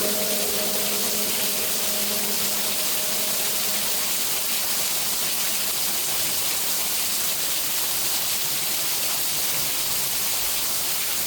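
Steady rain, an even hiss with no pauses. The echo of a chanting voice dies away in the first few seconds.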